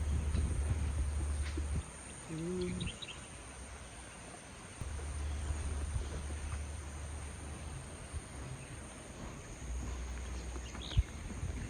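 Rural outdoor ambience: a steady high insect drone, a few short bird chirps about two and a half seconds in and near the end, and a brief low call about two seconds in, with wind rumbling on the microphone in long stretches.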